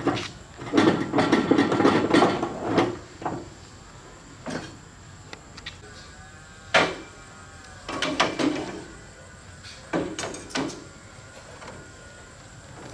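Irregular knocks and clattering of hard objects being handled, busiest in the first few seconds, with a single sharp knock about seven seconds in.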